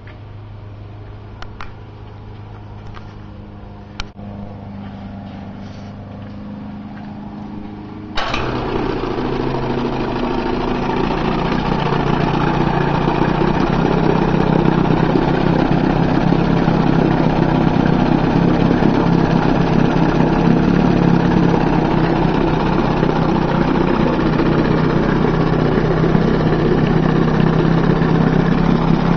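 1969 Evinrude 25 HP two-cylinder two-stroke outboard. After a few faint clicks, the engine comes in suddenly about eight seconds in and runs loudly and steadily. Its level builds over the next few seconds, then holds.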